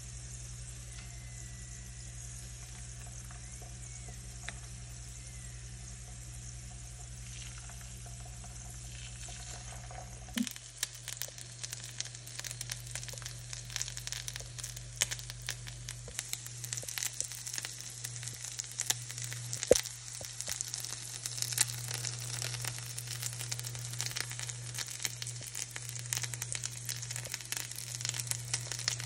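Potato rings frying in hot oil in a nonstick pan, sizzling over a steady low hum. About ten seconds in the frying turns into a louder, busier crackle full of small pops as egg and vegetables fry inside the rings.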